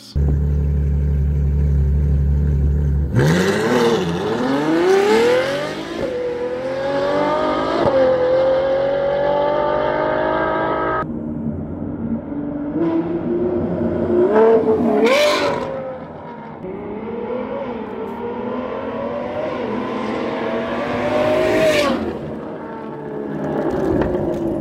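Straight-piped Ferrari FF's naturally aspirated V12 exhaust, very loud. After a steady low drone, the engine revs hard about three seconds in, its pitch climbing steeply and holding high until the sound cuts off abruptly. It then pulls hard again in a second run, the pitch rising and falling with sharp drops at the shifts.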